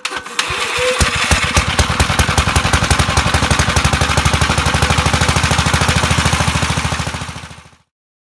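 Sears Suburban 12 tractor's single-cylinder Tecumseh HH120 engine catching over the first second, then running steadily with a rapid, even firing beat.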